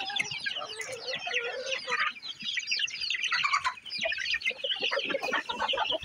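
A flock of chickens clucking, many short overlapping calls throughout.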